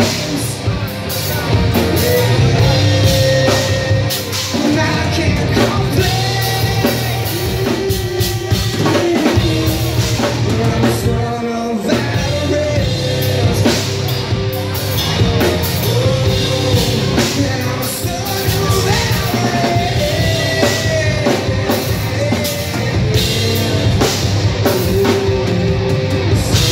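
A rock band playing live: distorted electric guitars, bass and a drum kit with steady cymbals, and a singer's vocals over them.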